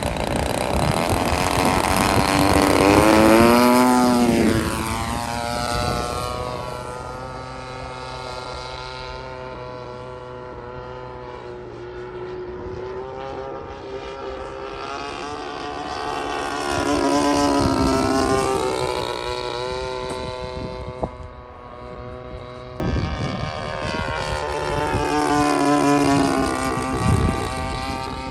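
A radio-controlled P-47 Thunderbolt scale model's DLE-35RA 35 cc single-cylinder two-stroke gas engine and propeller, running in flight. It passes three times, each pass growing louder as it comes in, then falling in pitch as it goes by: near the start, around the middle, and shortly before the end.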